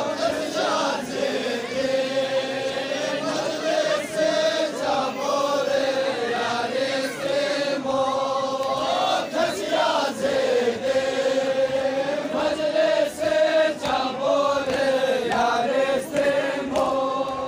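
A crowd of men chanting a mourning lament together in one sustained, slightly wavering line, with occasional sharp slaps cutting through.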